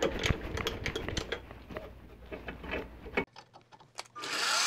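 Clicks and light rattles from a benchtop mini mill's handwheels being turned, then, about four seconds in, the mill's spindle motor starts and spins up to a steady whine, the loudest sound here.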